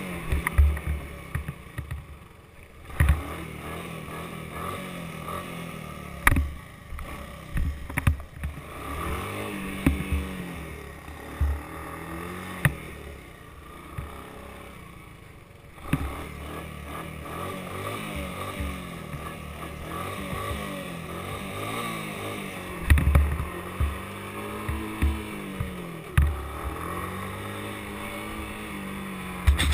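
Honda three-wheeler's engine running as it rides over rough grass, revving up and falling back again and again, with sharp knocks and thumps scattered through it.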